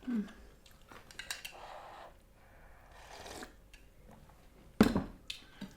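Close-miked eating: soft crunching and chewing of food with small clicks, a brief hum at the start, and one loud sharp knock, like a utensil or dish on the table, about five seconds in.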